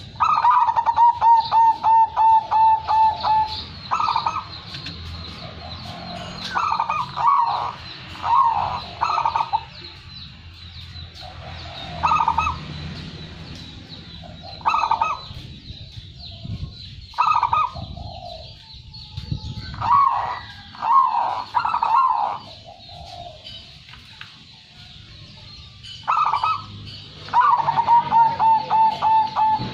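Zebra dove (perkutut) cooing. A long run of rapid, evenly spaced coos, about five a second, opens the stretch and comes again near the end, with short coo phrases in between.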